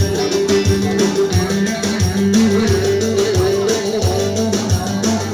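Turkish folk dance music (oyun havası) with plucked strings and a steady percussion beat.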